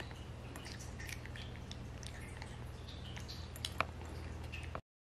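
Cat eating dry kibble from a glass bowl: irregular crunching and small clicks, with one sharper click near the end, over a steady low hum. The sound cuts off suddenly just before the end.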